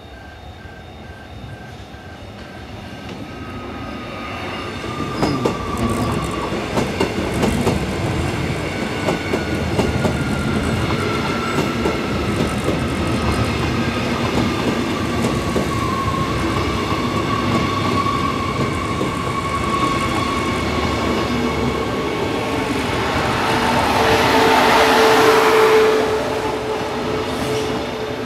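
Queensland Rail SMU-class electric multiple-unit train approaching and passing close by, growing louder over the first few seconds, with wheels clattering over the rail joints and a whine that slowly falls in pitch. A loud hissing rush comes near the end.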